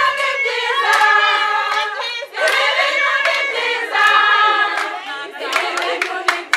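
A group of women singing together in unison phrases with hand clapping, the clapping growing quicker and denser near the end.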